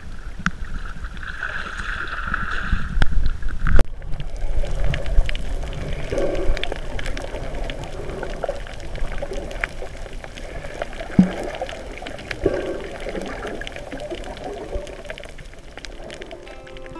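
Water sloshing around a camera at the surface, then a loud splash-thump about four seconds in as it goes under. After that, muffled underwater sound: low rumbling, gurgling bubbles and scattered faint clicks.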